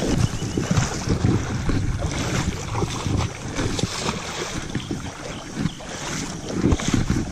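Water splashing and sloshing as feet wade through a shallow, muddy stream, in uneven surges, with wind buffeting the microphone.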